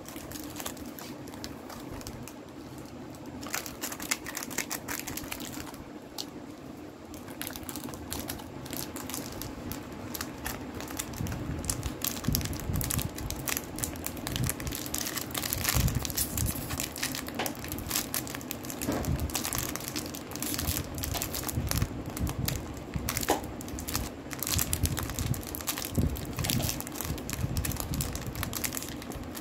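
Plastic wrapper of a wafer biscuit pack crinkling and crackling as fingers pick and pull at its crimped end seal to tear it open. The crackling grows busier about halfway through.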